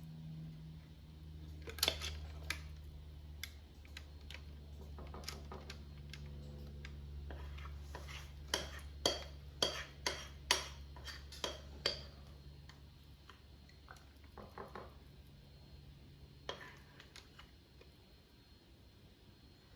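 A utensil scraping and tapping against a bowl as thick fudge mixture is worked out into a baking dish. A quick run of sharp knocks comes about halfway through, over a low steady hum.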